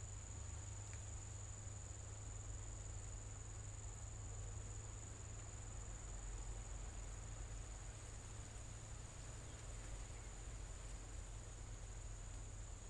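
Insects trilling steadily at one high pitch, with a low steady rumble underneath.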